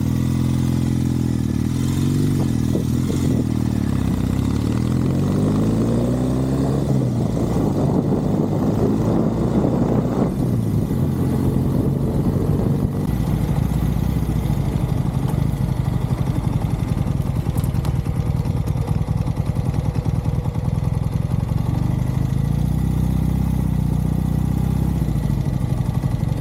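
Norton Commando parallel-twin motorcycle engine pulling away, its pitch rising over a few seconds, then running on under a dense rushing noise. It settles to a steady lower note near the end.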